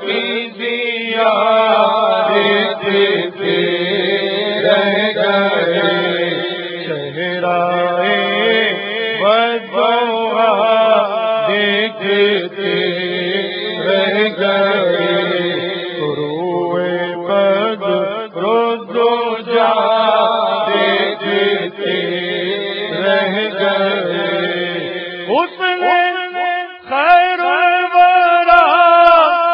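Urdu naat sung without instruments: a man's solo voice carries the melody over a steady hummed drone of backing voices. The drone drops out near the end, leaving the lead voice alone.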